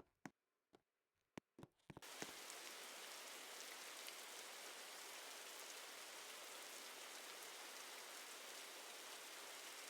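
A few scattered soft clicks, then about two seconds in a faint, steady rain-like hiss begins and keeps on unchanged.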